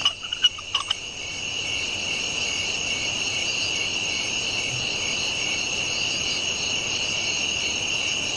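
Crickets chirring steadily at night, a continuous high trill, with a few short clicks in the first second.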